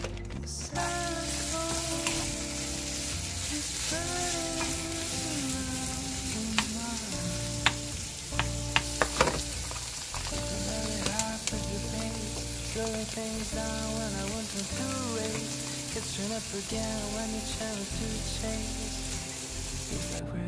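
Thin-sliced beef brisket and shiitake mushrooms sizzling steadily as they fry in a nonstick pan and are stirred with a wooden spoon. A few sharp knocks come about seven to nine seconds in.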